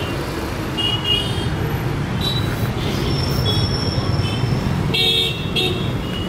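Street traffic running steadily, with short vehicle horn toots several times and the loudest burst of honking about five seconds in.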